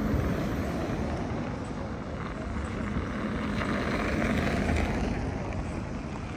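Street noise from a passing motor vehicle: a steady rumble that swells about four to five seconds in.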